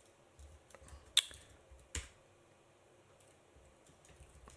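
A few scattered computer keyboard key presses, with two sharper clicks about one and two seconds in, then near quiet.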